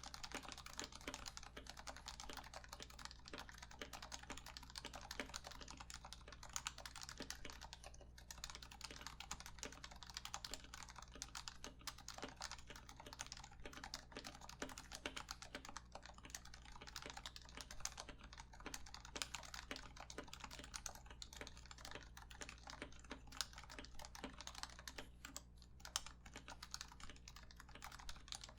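Continuous fast typing on a Realforce 87u Topre electro-capacitive keyboard with lubed sliders and stabilizers: a dense, unbroken stream of soft keystrokes, with a few louder strokes standing out.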